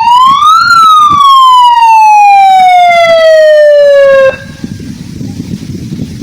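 Siren signalling the start of play after a countdown: one loud wail that rises in pitch, peaks under a second in, then falls slowly and cuts off suddenly a little past four seconds in. Low rumbling noise follows.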